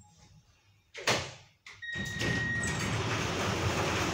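Copenhagen Metro train's sliding doors shutting about a second in, then the train pulling away with a steady rumbling running noise and a brief high whine as it starts.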